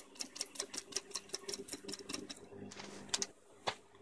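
Sewing machine stitching slowly through layered fabric and tulle: an even run of needle ticks, about six or seven a second, over a faint motor hum. The stitching stops after about two and a half seconds, followed by a soft rustle and a single click.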